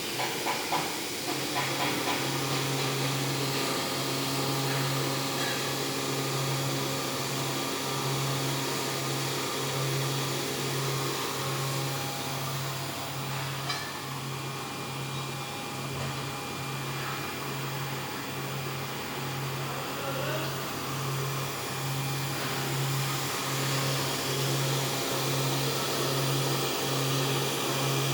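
CNC machine running while cutting a worm gear: a steady motor drone with a low hum that pulses about once a second. A few light clicks sound in the first two seconds.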